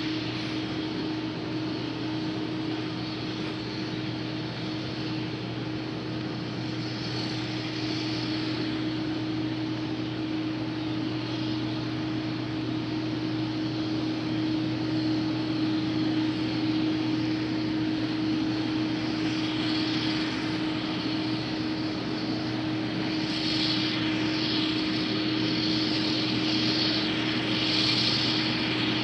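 IH 2577 combine harvester running steadily while cutting wheat, a constant engine drone with a steady hum that grows a little louder over the second half.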